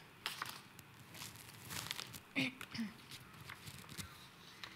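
Faint background sound of a large seated gathering: scattered small clicks and shuffling, with a short snatch of a voice about two and a half seconds in.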